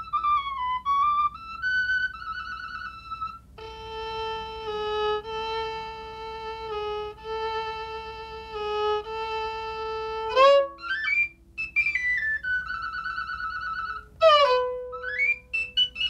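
Fiddle music: a few short high notes, then a run of long held lower notes, then notes that slide up and down between higher notes.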